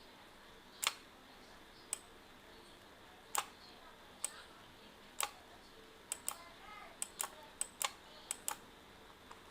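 Computer mouse clicking: single clicks about a second apart, then a quicker run of clicks in the second half.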